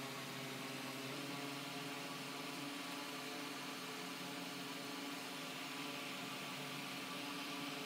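A steady low hum with an even hiss over it, unchanging throughout, like a running fan or appliance.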